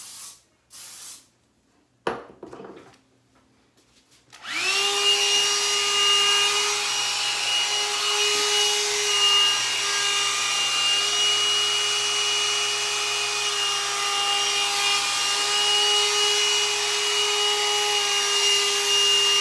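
Hot-air dryer brush switched on about four seconds in: its motor spins up and then runs steadily, a high whine over the hiss of blowing air.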